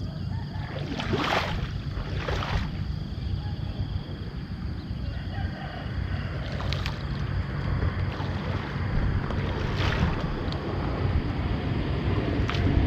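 Low steady rumble from a small boat with wind on the microphone, broken by several short splashes of water as the gill net is worked.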